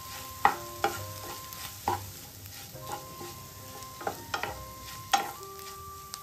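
A spatula stirs and scrapes scrambled eggs frying in oil in a pan, over a light sizzle. The spatula knocks against the pan at irregular moments, with a cluster of three knocks about four seconds in and a loud one about five seconds in.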